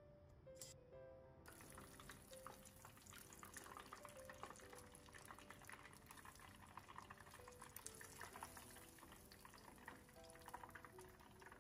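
Faint sizzling and crackling of panko-breaded Camembert pieces deep-frying in hot oil, starting about a second and a half in, over soft background music.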